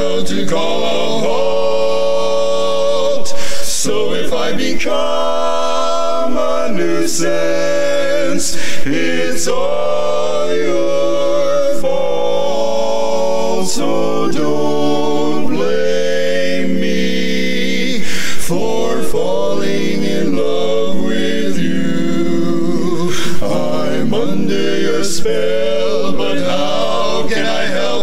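Male barbershop quartet singing a cappella in four-part close harmony, moving through held chords that change every second or two.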